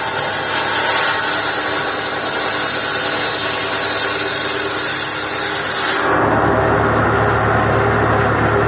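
Circular saw blade of a PTO-driven saw bench cutting through firewood with a loud high hiss; about six seconds in the cut ends and the blade spins free over the steady running of the 1958 Massey Ferguson 35's four-cylinder engine.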